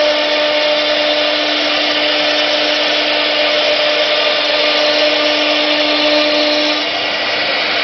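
CNC wood router spindles running at speed with a steady two-note whine over a dense hiss of the bits cutting a wooden sheet. Near the end the whine fades out and the noise drops a little.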